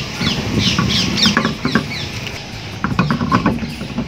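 Steel wheel rim knocking and scraping against the hub as a heavy spare wheel is worked onto the studs, with a few sharp knocks. Birds chirp repeatedly in the background.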